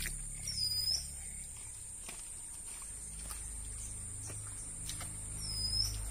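Steady high-pitched insect trill, with two short dipping bird calls, one about half a second in and one near the end.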